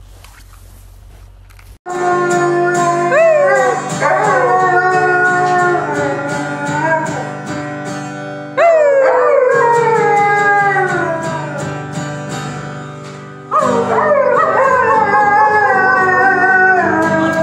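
A husky howling along to a strummed acoustic guitar, starting about two seconds in: three long howls, each starting high and sliding down in pitch, over steady guitar chords.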